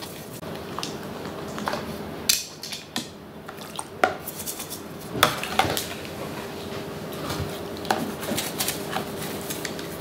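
An old toothbrush scrubbing small plastic parts in a plastic basin of soapy water, with water sloshing and sharp clatters as the parts knock against the basin and each other. The parts are being cleaned of sticky spilled cola.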